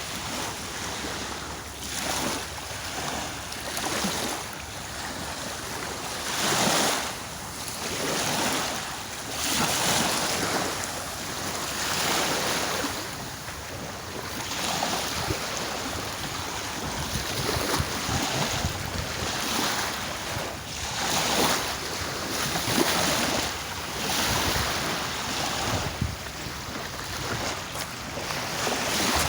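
Sea waves washing in and breaking, a continuous hiss of surf that swells and fades in irregular surges a second or two apart.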